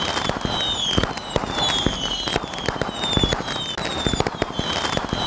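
Fireworks: a dense run of bangs and crackles, with short falling whistles repeating every half second or so.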